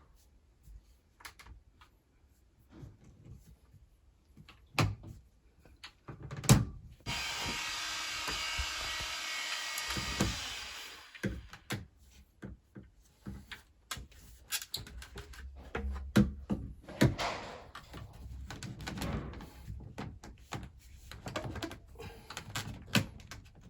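PVC pipe and fittings being handled and pushed together during a dry fit: scattered knocks and taps, the loudest about six and a half seconds in, with a steady rushing noise for about three seconds in the middle.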